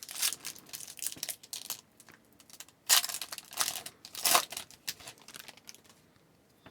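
A hockey card pack wrapper being torn open and crinkled by hand: irregular rustling, loudest in two bursts in the middle, dying away near the end.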